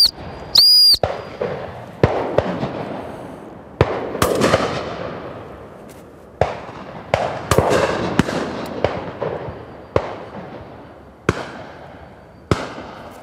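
Shotguns firing through a pheasant drive: about a dozen sharp reports, some single and some in quick pairs, each trailing off into a long echo. A short blast on a gundog whistle comes just after the start.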